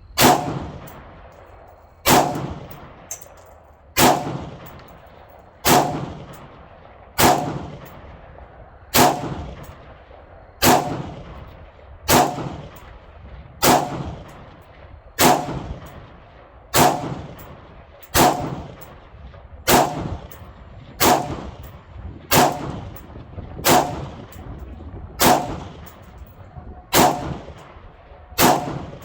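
3D-printed Orca AR-15 firing 5.56 rounds semi-automatically at a slow, steady pace, about one shot every one and a half seconds, each crack trailing off. This is the rifle's first full-magazine test.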